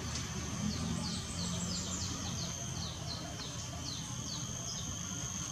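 Outdoor ambience: from about a second in, a bird repeats a short falling note about three to four times a second over a steady high-pitched insect drone. A low vehicle rumble fades out in the first couple of seconds.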